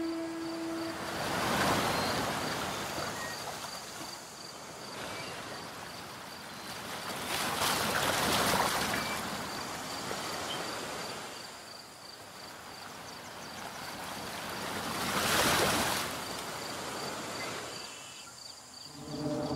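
Waves washing in, an even rushing noise that swells and fades three times, roughly every six to seven seconds. Background music stops about a second in and comes back near the end.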